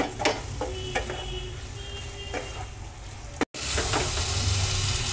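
Wooden spatula stirring boiled potatoes being fried with spices in a non-stick kadhai: a light sizzle with a few knocks and scrapes of the spatula against the pan. After an abrupt break about three and a half seconds in, a steadier, louder sizzle of the potatoes frying in oil and masala.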